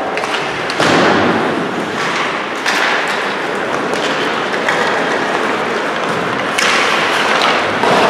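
Ice hockey rink sound of live play: a steady wash of skates scraping the ice and sticks and puck knocking, jumping abruptly louder about a second in and again near three and near seven seconds.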